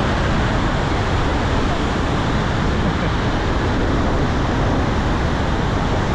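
Steady, loud rushing of Vernal Fall's water close by, with a deep rumble of wind buffeting the microphone.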